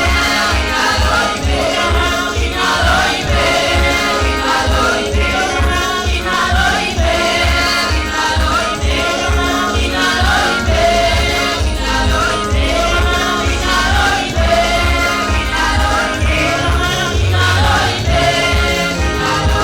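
Gospel praise and worship music: a group of voices singing together over a band with a steady, pulsing bass beat.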